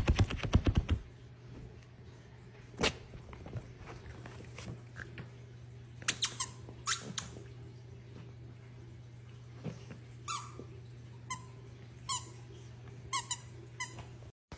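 Plush dog toy squeaking in a string of short, separate squeaks as a small dog bites and carries it, with a quick flurry of clicks near the start and a faint steady hum underneath.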